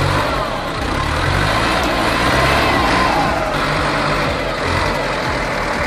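Heavy diesel engine of logging machinery running hard, its pitch rising and falling as it revs under load.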